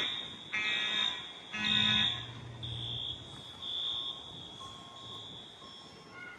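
Smoke alarms sounding, set off one by one in a fire alarm test. A high-pitched alarm beep repeats about once a second. In the first two seconds it is joined by three louder, buzzier pulses about a second apart, and then it grows fainter.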